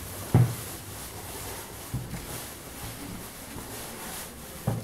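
Footsteps: a few dull, irregular low thuds of someone walking slowly over a floor, the loudest about a third of a second in and another near the end.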